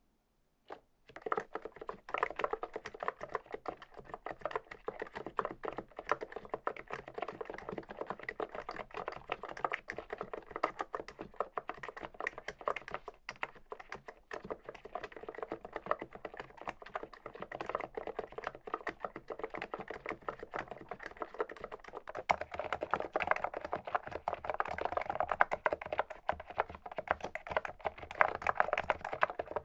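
Continuous fast typing on the archon E1 PRO's contactless keyswitches, a dense run of key clacks that starts about a second in and grows louder in the last third.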